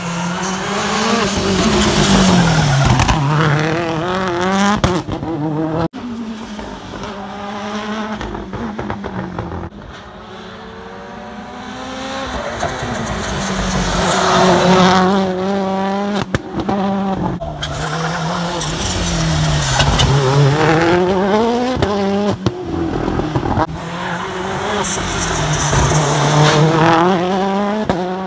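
Citroën C3 WRC rally car's turbocharged four-cylinder engine at full tilt on tarmac, its pitch rising hard under acceleration and dropping sharply on lifts and downshifts into the bends, again and again. It fades as the car pulls away and comes back loud as it passes close.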